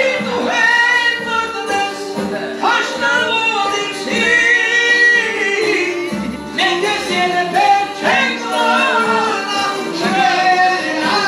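A man singing through a handheld microphone and loudspeaker, over a musical accompaniment with held tones and a steady low beat.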